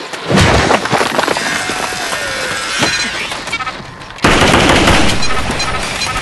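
Gunfire: several sharp shots and knocks in the first three seconds, then a sudden loud burst of rapid fire starting about four seconds in, trailing into evenly repeating shots.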